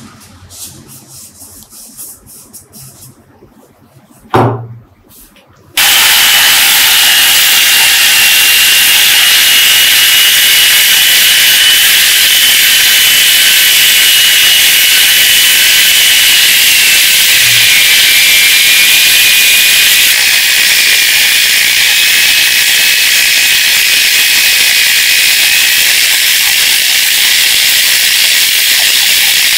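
Angle grinder fitted with a sanding disc on a backing pad, switched on about six seconds in and then running steadily with a high whine and a hiss as it sands a tube. The whine drops slightly in pitch a little past halfway. Before it starts there are a few light knocks and a single thump.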